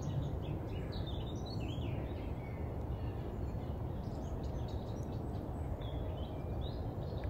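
Steady outdoor wind and ambient noise, with scattered short, high-pitched calls through it.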